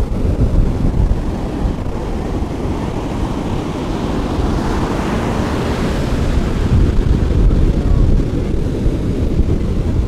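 Ocean surf breaking and washing up the beach, with wind rumbling on the microphone. The hiss of the surf swells about halfway through as a wave comes in.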